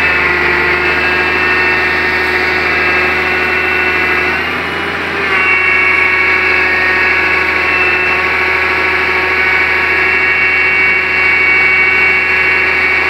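Excavator's diesel engine running steadily with a many-toned hydraulic whine. About four seconds in it dips and its pitch shifts, then it holds steady at the new pitch.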